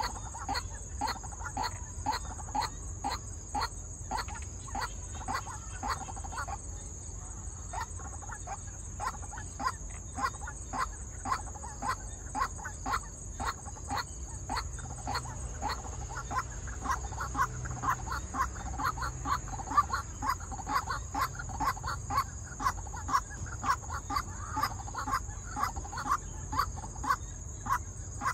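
White-breasted waterhens calling: short croaking notes repeated about two a second without a break, growing denser and louder in the second half.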